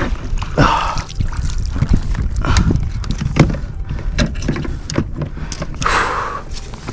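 Scattered knocks and clicks of handling in a small fishing boat, over a steady low rumble. Two brief hissing noises, one about half a second in and one near the end.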